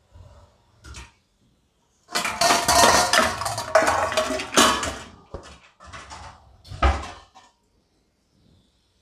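Metal kitchen utensils clattering and scraping against pots and pans: a few light knocks at first, a loud irregular run of clatter starting about two seconds in, and a few shorter clanks near the end.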